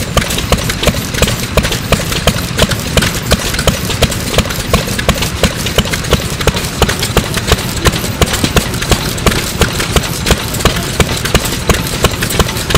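Circa-1949 STRONG Type A 2.5 hp single-cylinder stationary engine running steadily, with a rapid, regular beat of sharp knocks over a low rumble.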